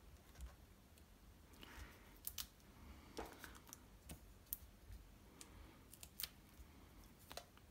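Faint, scattered small clicks and rustles of paper handling: backing peeled off foam adhesive dots and small cardstock pieces pressed onto a card.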